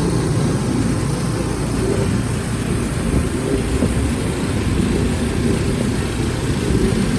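An engine running steadily, a dense low rumble with no change in pitch or speed.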